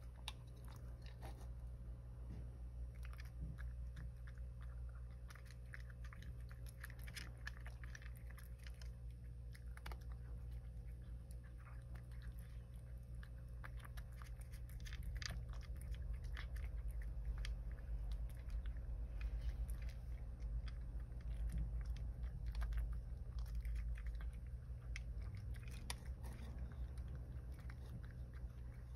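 A cat crunching dry kibble, a steady run of small crisp crunches as it chews.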